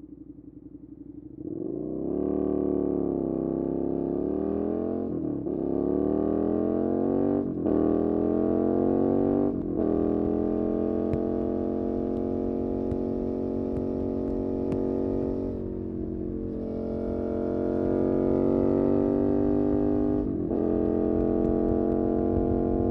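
Suzuki SV650's 90-degree V-twin idling, then pulling away and accelerating through the gears, with upshifts dropping the pitch about 5, 7.5 and 9.5 seconds in. It then cruises steadily, rolls off briefly near the middle, and picks up through one more shift near the end.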